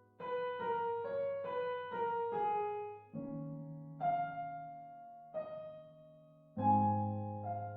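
Piano music: a quick run of notes, then a few chords, each struck and left to fade.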